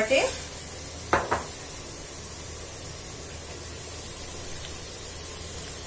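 Hot oil and fried onions sizzling in a pressure cooker as a steady hiss, with two short knocks about a second in.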